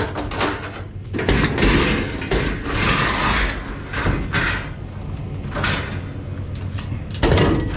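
Scrap metal appliance parts being shifted and dragged: metal scraping and clanking, loudest between about one and four and a half seconds in.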